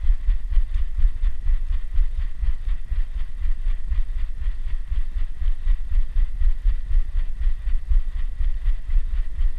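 Dog panting rapidly, about four to five breaths a second, heard up close through a GoPro strapped to its body, with heavy rumbling as the mount and housing are jostled.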